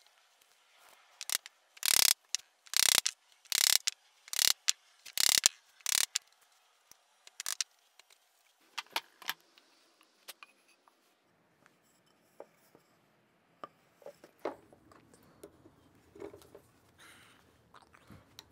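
A chisel chopping out a hexagonal recess for a nut in a wooden vise jaw: about eight sharp cutting strokes in the first half, then quieter clicks and knocks as the nut and threaded rod are fitted into the recess.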